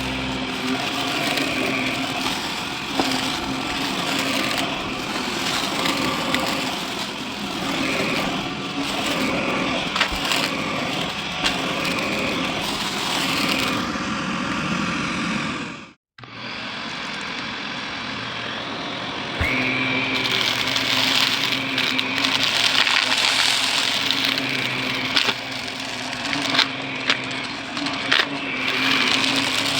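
Shark vacuum running and sucking up crunchy, gritty debris, with many sharp crackling clicks as bits rattle through the brushroll and hose. The sound cuts out abruptly about halfway through, then the vacuum runs again, now with a steady high whine over the motor noise.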